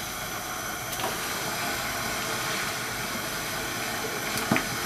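Steady hiss of a pot of beef in rice-flour gravy simmering on the stove, with a couple of faint knocks from a wooden spoon stirring it, one about a second in and one near the end.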